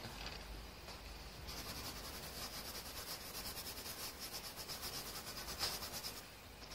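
Colored pencil scratching on drawing paper in quick, even back-and-forth shading strokes. The strokes start about a second and a half in and pause briefly near the end.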